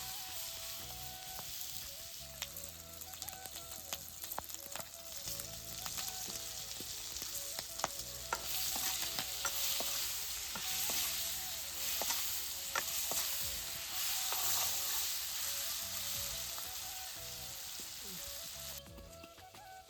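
Pork sizzling as it is fried and stirred in a pan, with sharp clicks of the stirring utensil striking the pan. The sizzle drops off abruptly about a second before the end.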